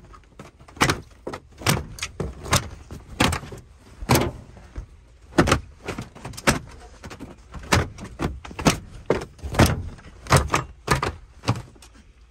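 Hands cleaning the inside of a truck cab: a string of irregular knocks and thumps against the cab's interior panels, about two a second.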